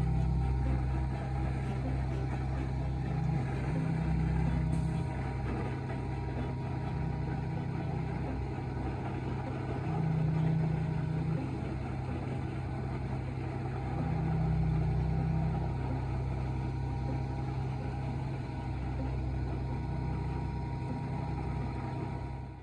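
A large engine running steadily, its low hum stepping up in pitch briefly every few seconds.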